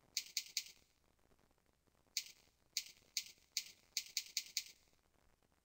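Computer keyboard keys being typed: three quick clicks, then after a pause about eight more, coming faster near the end.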